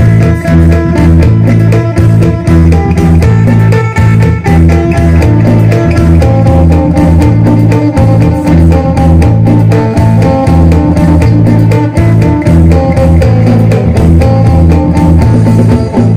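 Electric guitar played in the style of the Isan phin (phin sing): a fast plucked melody over a steady, repeating low bass pattern.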